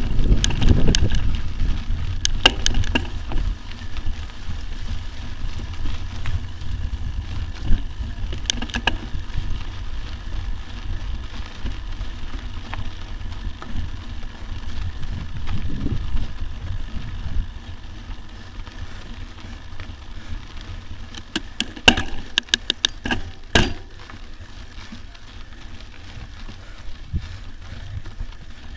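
Mountain bike rolling over a loose dirt track: a low rumble of wind and tyre noise, heaviest at the start and easing after a few seconds. Scattered sharp clicks and rattles from the bike come through it, with a dense cluster of them about three-quarters of the way through.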